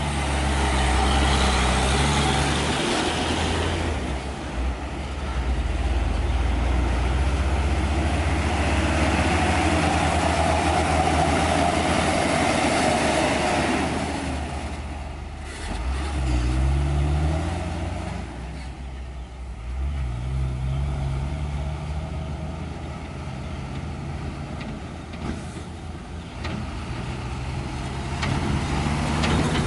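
Hino 500-series diesel dump trucks driving past, engines running loud and steady; about halfway the engine pitch rises twice as a truck pulls away, then the sound eases off and builds again near the end.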